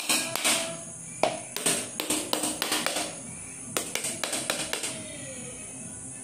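A whole brown coconut struck again and again with the back of a heavy kitchen knife to crack its shell open. A quick, uneven run of sharp knocks stops about five seconds in.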